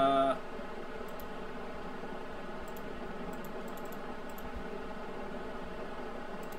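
A handful of faint, scattered computer keyboard and mouse clicks over a steady low background hiss.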